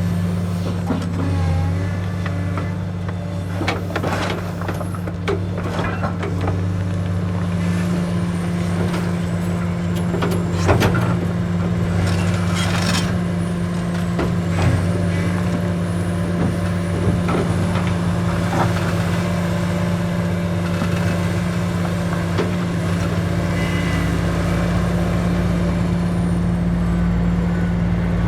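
Komatsu PC450LC-7 excavator's diesel engine running steadily at working speed while it loads gravel, with scattered knocks and clatters.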